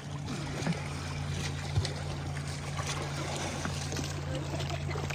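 Motorboat engine running steadily under way, a low even hum, with the rush of water and wind around the hull.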